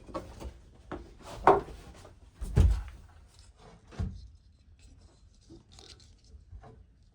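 Handling noise: a few separate knocks and thumps, the loudest with a dull low thud about two and a half seconds in, then faint small clicks and taps.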